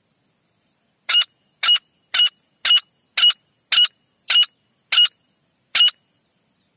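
Teetar (francolin) calling: a series of nine short, loud call notes about half a second apart, starting about a second in, with a faint steady high tone underneath.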